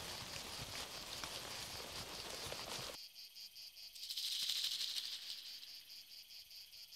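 Insects chirping in a steady pulsing rhythm, about four to five chirps a second. For the first few seconds this sits over a soft rustling hiss with scattered clicks. About four seconds in, a louder buzzing swell rises and fades.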